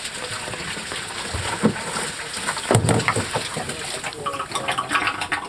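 Water rushing and splashing from a boat's raw-water washdown hose as the washdown pump is powered up, with a thin steady whine joining about four seconds in. A few muffled low voice sounds come through.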